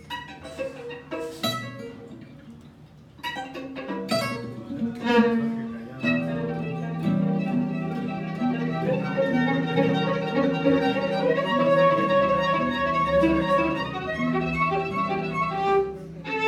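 Live acoustic instrumental music from a violin, acoustic guitar and double bass trio. It opens with sparse plucked notes and strums, then from about six seconds the violin plays a sustained bowed melody over guitar and bass.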